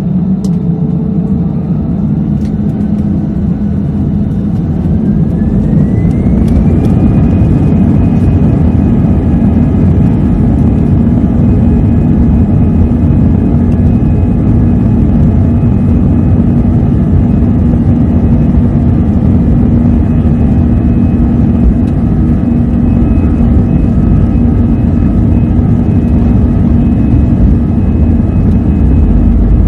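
Airliner jet engines spooling up to takeoff thrust, heard inside the cabin: a whine rises in pitch over the first several seconds and then holds steady over a loud, steady rumble of the takeoff roll.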